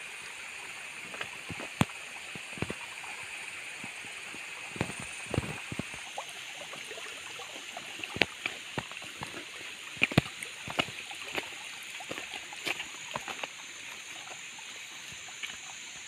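Water running in a small earthen irrigation channel that feeds a paddy field, a steady trickling rush, with irregular clicks and light knocks scattered through it, the sharpest about two seconds and ten seconds in.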